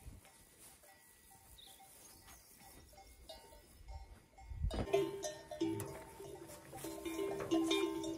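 Cowbells on grazing cattle clanking irregularly, faint at first and much louder from about five seconds in.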